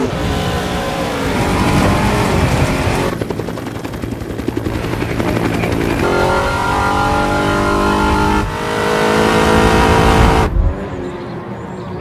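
Small petrol engine of a large-scale radio-controlled buggy running at high revs, its pitch rising, falling and holding as it races. The sound changes abruptly about 3, 8½ and 10½ seconds in and is quieter after the last change.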